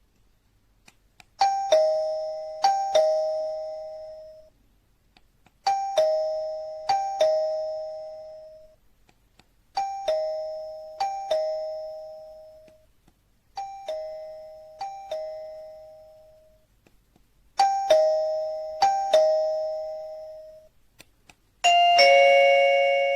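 Electronic doorbell chime of an XTU wireless video doorbell playing a two-tone ding-dong, the pair struck twice each time, repeated five times about four seconds apart. Near the end a louder, fuller chime tone starts.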